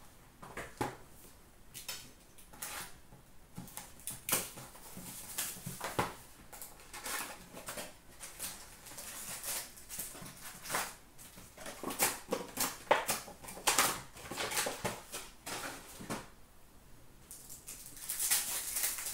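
Cardboard box and foil card packs being handled and opened: a run of short rustles, crinkles and taps, with a longer stretch of wrapper crinkling and tearing near the end.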